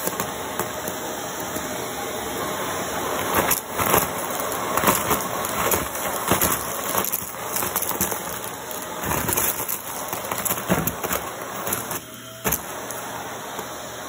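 Vacuum cleaner running with a Shark crevice tool on a metal wand, sucking confetti, sequins and fluff off carpet, with the pieces clicking and rattling as they go up the wand. The suction sound dips briefly about twelve seconds in.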